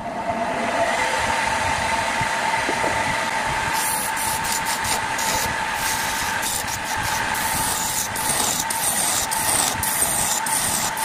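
Wood lathe running with a steady motor whine. From about four seconds in, a tool works the spinning wood, adding a rough hiss with irregular sharp clicks.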